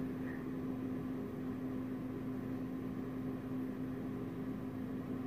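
Steady low hum with a constant tone over an even hiss: room background noise from a running appliance.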